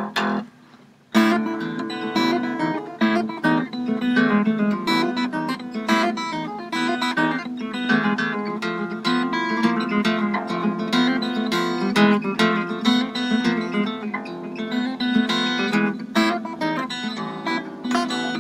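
Acoustic harp guitar played fingerstyle. After a brief pause about a second in, it carries on with a dense run of plucked notes.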